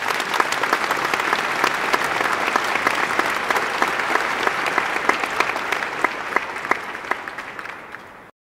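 A crowd applauding, a dense patter of many hands clapping, fading away near the end and then cutting off.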